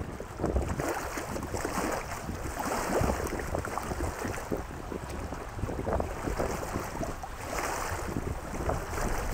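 Gusty wind buffeting the microphone in an uneven low rumble, over choppy lake water lapping at the shore.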